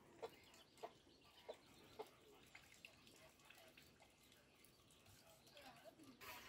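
Faint chicken clucking: short calls about every half second for the first two seconds, then quieter, scattered calls.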